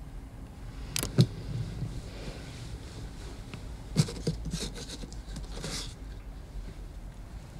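Rustling and scraping of bedclothes being moved, with a few light knocks about a second in and again at about four seconds.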